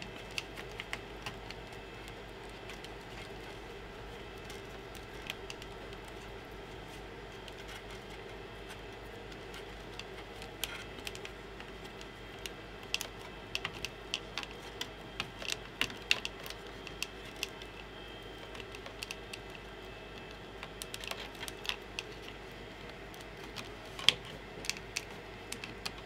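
Irregular small clicks and taps of hands handling plastic parts and cables on a 3D printer, in scattered clusters, over a steady low hum.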